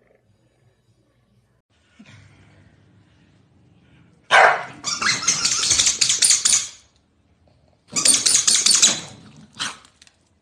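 Corgis barking and growling at each other in two loud, harsh bouts of rapid barks, about four and eight seconds in, with a short bark near the end.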